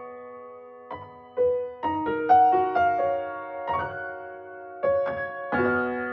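Background music: gentle keyboard notes and chords, each struck and then fading.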